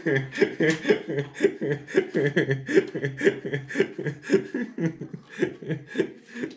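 A man laughing in a long run of quick, even pulses, about five or six a second.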